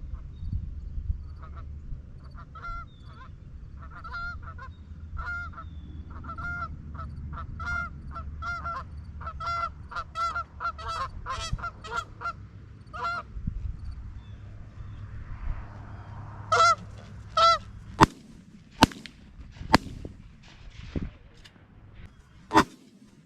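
Geese honking, the honks coming quicker as they close in, then a rapid series of shotgun blasts about a second apart, fired at the geese over the decoys.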